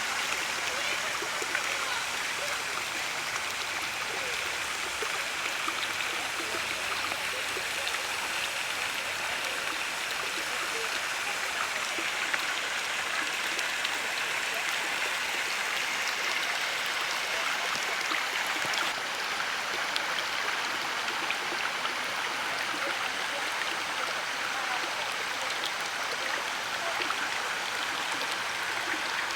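Canal water flowing steadily, an even rushing noise with small splashing ticks in it.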